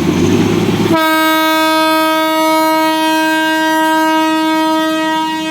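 Darjeeling Himalayan Railway toy train locomotive sounding one long, steady horn blast that starts about a second in, after a moment of rumbling train noise.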